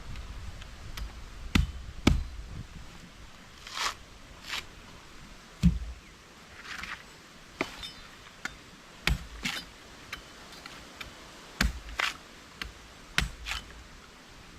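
A series of irregular sharp knocks and thuds, a few seconds apart, mixed with brief rustling and scraping.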